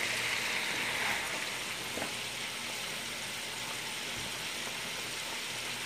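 A fresh batch of chicken wings deep-frying in hot oil in a pot: a steady sizzle, a little louder in the first second.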